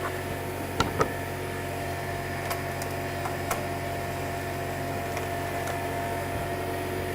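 A few light clicks of a bolt, fender washer and nut being fitted by hand into a plastic fender and bracket, two sharper ticks about a second in, over a steady electrical hum.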